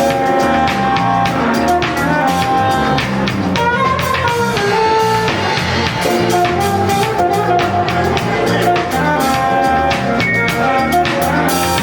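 A live band playing: a guitar melody with held notes over a drum kit beat, at a steady loud level.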